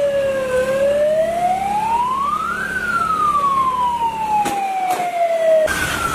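Emergency siren wailing in slow sweeps: the pitch falls briefly, rises for about two seconds, falls slowly for about three, then jumps back up near the end and starts falling again.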